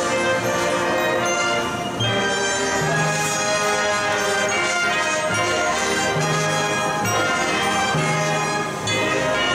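Marching band playing: the brass section holds full chords over the band's drums and front-ensemble percussion.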